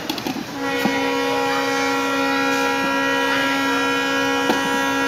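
A horn sounding one long, steady blast of several tones at once, starting about half a second in.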